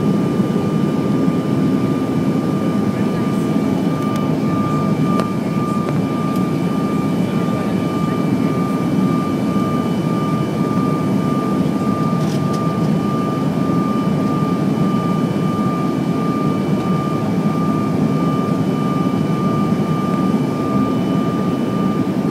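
Cabin noise inside a Bombardier CRJ1000 in flight: a steady roar of airflow and the rear-mounted GE CF34 turbofans, with a thin high whine held over it.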